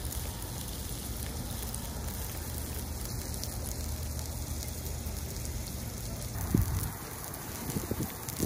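Cheese-topped scallops in their shells sizzling and crackling on a wire grill over hot charcoal, under a low rumble, with two dull bumps near the end.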